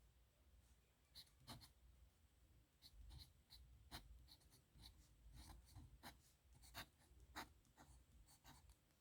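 Dip pen's steel nib scratching faintly across paper in many quick, irregular strokes.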